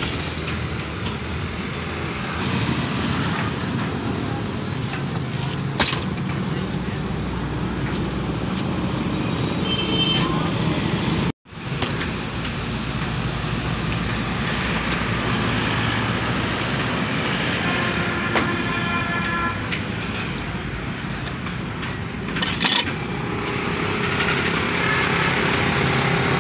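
Steady road traffic and engine noise, with the sound cutting out for an instant about eleven seconds in.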